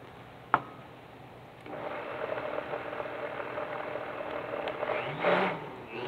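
Countertop blender switched on a little under two seconds in, its motor whirring steadily as it purées a thick edamame pesto with added olive oil, growing louder near the end. A single knock comes about half a second in.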